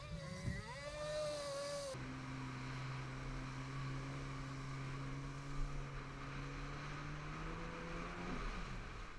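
Yamaha Superjet stand-up jet ski's two-stroke engine running at steady throttle with water spray hissing, its pitch creeping slightly higher, then dropping away near the end as the throttle comes off. In the first two seconds a higher, wavering engine note is heard instead.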